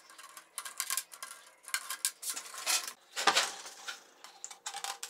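Small wire cutters snipping steel wire into short spoke pieces: a run of irregular sharp metallic snips and clinks, the loudest about three seconds in.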